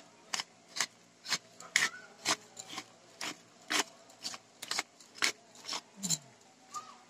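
A clear plastic seasoning container shaken and tapped over a stainless steel pot, seasoning falling in. It makes short, sharp ticks at about two a second.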